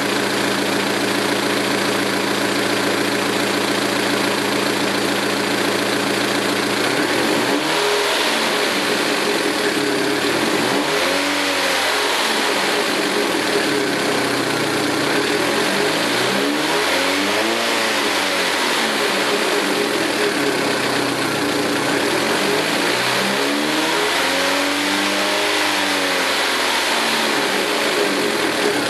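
Saturn Ion Redline's supercharged 2.0 L four-cylinder idling, then revved up and let fall back four times, the last two revs longer. The engine has a lifter tick from stock hydraulic lifters running with aftermarket GMR camshafts.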